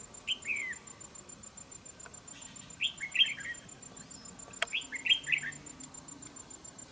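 Red-whiskered bulbul singing: three short, quick whistled phrases a couple of seconds apart, with a single sharp click about four and a half seconds in.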